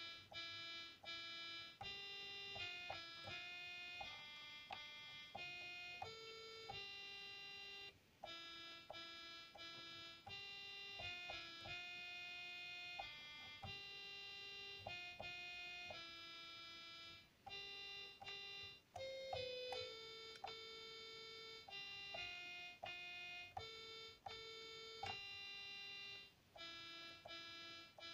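Toy electronic keyboard playing a simple melody one note at a time, each note held at an even level and stopping abruptly, with brief pauses between phrases.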